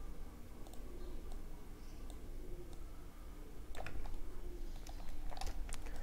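Computer keyboard and mouse clicks: a few light taps, then small clusters of sharper clicks about four and five and a half seconds in, over a faint low hum.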